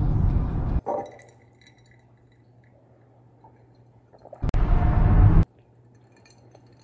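Two loud slurps of a drink sucked through a straw, each about a second long: one at the start, the other about four and a half seconds in, the second through a straw in a glass bottle.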